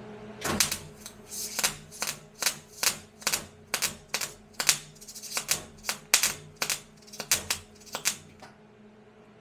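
A run of about twenty sharp taps or clicks, two to three a second, stopping about eight seconds in, over a steady low hum.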